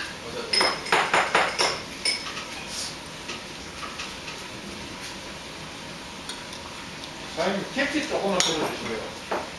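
Eating utensils clinking and tapping against small ceramic side-dish bowls as food is picked up: a quick run of sharp clicks in the first two seconds, then another clatter near the end.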